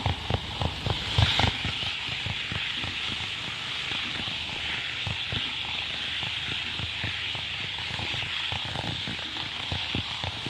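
N-gauge model train running on layout track: its wheels click irregularly over the rail joints over a steady high hiss, with the clicks loudest in the first second or two.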